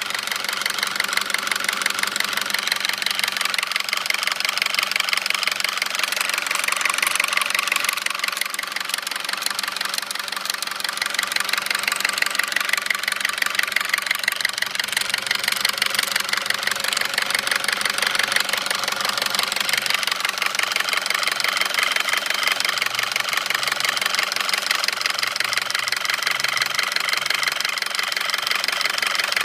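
2009 Audi A4 2.0T turbocharged four-cylinder engine running steadily with a rapid, even knocking. The dealer found metal flakes around the cam lobes and recommended a new engine.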